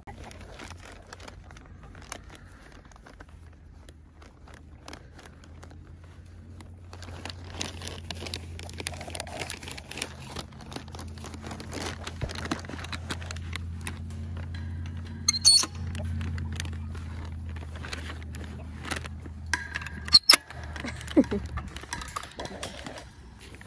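Footsteps through grass with jangling and clinking of metal as things are carried and handled, over a low steady hum. Two sharp clanks come in the second half, the second one the loudest.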